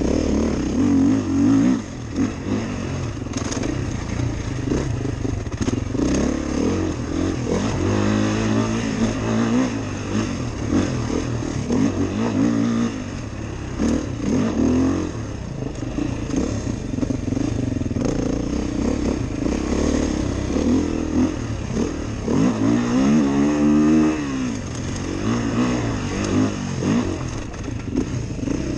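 Beta 430RR dirt bike's single-cylinder four-stroke engine being ridden on a dirt trail, its pitch repeatedly rising and falling as the throttle is opened and closed through the gears. Light clattering from the bike runs underneath.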